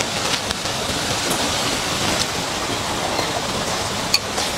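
Steady hiss of falling water, with one sharp click a little after four seconds in.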